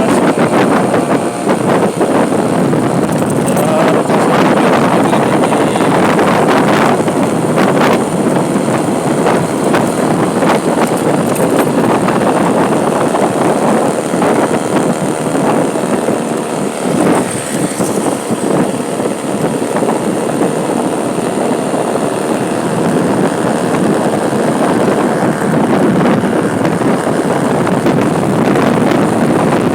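Steady road-vehicle noise with wind buffeting the microphone, loud and continuous throughout.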